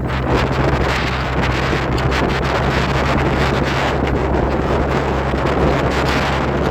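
Wind buffeting the microphone, a loud, steady rushing rumble.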